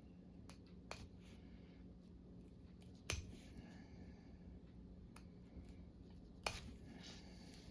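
Point of a small Sharp Finger knife cutting the thread stitches of a sewn-in hat tag: a handful of sharp little snaps a second or two apart as the threads part, the loudest about three seconds in, over a faint steady hum.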